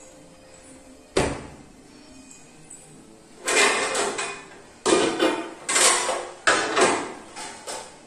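Kitchen handling noises: a sharp knock about a second in, then a run of five or six short, loud scraping and clattering strokes.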